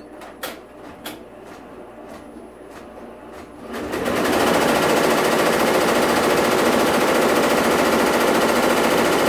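Six-head Tajima TFMX-SC1506 commercial embroidery machine starting up. A few separate clicks come first, then from about four seconds in all the heads stitch together in a loud, fast, steady clatter.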